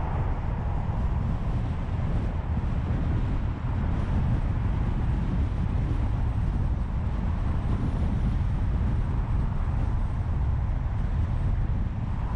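Road and street traffic noise heard from a camera mounted on the outside of a moving car: a steady, even low rumble with no distinct events.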